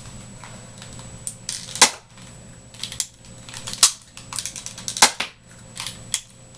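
Tiny hand-rotated Nerf dart blaster being cocked and fired: three sharp plastic snaps about two seconds, two seconds and one second apart, with smaller clicks of pulling back and turning the barrel between them.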